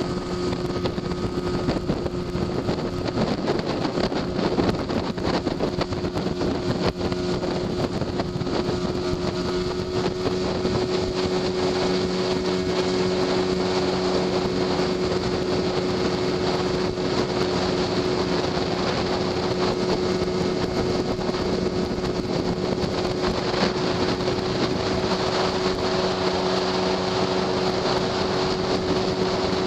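Boat's outboard motor running steadily at cruising speed, a constant hum under the rush of water along the hull, with wind noise on the microphone.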